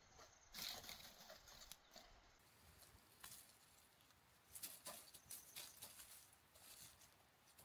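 Faint rustling and crackling of dry grass stems and dead leaves as a cat pushes its head and body through the undergrowth, in short irregular bursts with the busiest stretches about half a second in and around five seconds in.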